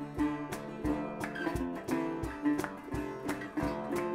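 Background music: a guitar tune with a steady beat.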